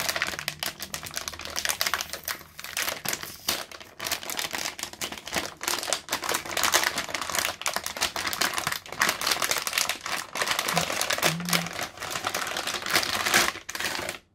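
Metallized anti-static plastic bag crinkling and crackling as it is opened and a graphics card is slid out of it: a dense, irregular run of sharp crackles.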